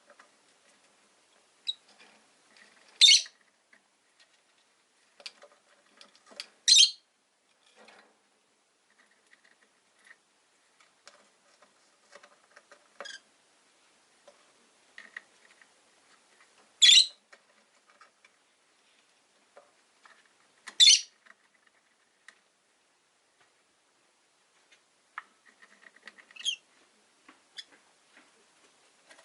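Rosy-faced lovebirds in their cage giving short, high-pitched single calls every few seconds, six in all, with faint clicking and tapping between them.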